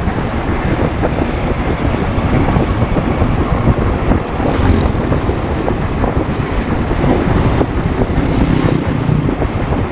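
Motorcycle riding along, its engine running steadily under wind rushing over the microphone, with other motorbikes and cars passing close by in traffic.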